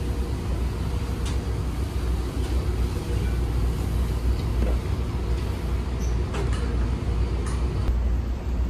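Steady low drone of a car ferry's engines and machinery heard inside the ship, with a few faint clicks now and then.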